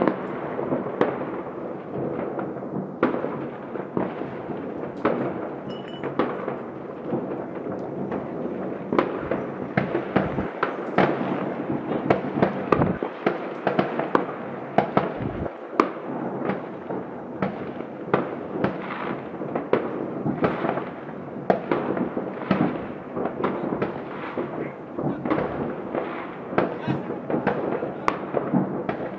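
Many fireworks going off across a city at once: a dense, unbroken string of overlapping bangs and pops, some louder and nearer, most farther off.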